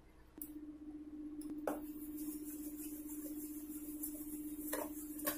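Urad dal batter being beaten in a bowl, with a few short taps against the bowl over a steady low hum.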